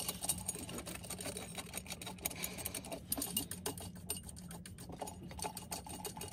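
Rapid ratcheting clicks of a small socket wrench tightening the cover of a generator's raw-water sea strainer, over a steady low hum.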